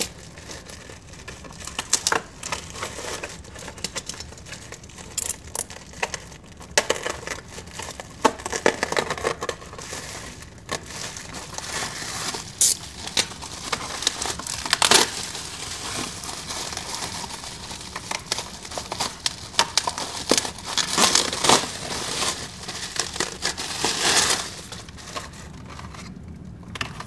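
Bubble wrap crinkling and rustling as a bubble-wrap bag is handled and pulled open, with irregular sharp crackles.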